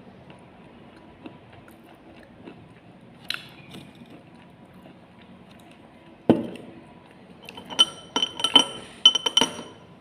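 Slate pencils crunching and snapping: one sharp crack about six seconds in, then a quick run of hard, ringing clinks near the end.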